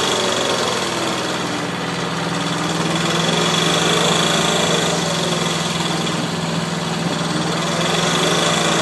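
An engine running steadily, with a faint tone that slowly wavers up and down in pitch.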